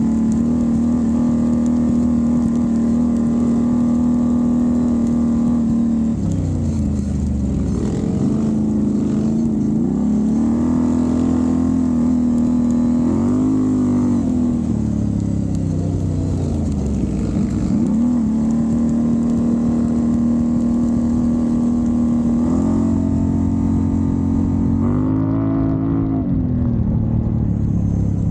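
Can-Am Renegade ATV's V-twin engine running at steady revs. Its pitch dips and climbs again several times as the throttle is eased off and opened up on the trail.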